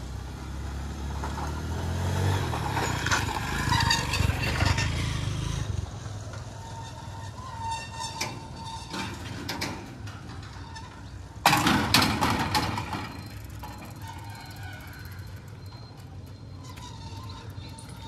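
Road traffic at a railway level crossing: a motor vehicle's engine grows louder and passes over the first few seconds. A sudden loud noise comes about eleven and a half seconds in and dies away over a second or two.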